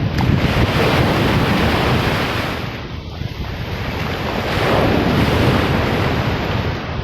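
Wind buffeting the microphone over the wash of surf. It eases about three seconds in and builds again a couple of seconds later.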